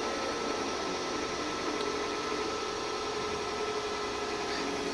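Brown & Sharpe No. 2 universal cylindrical grinder running with its wheel spindle and workhead turning: a steady machine hum and hiss with a constant high whine.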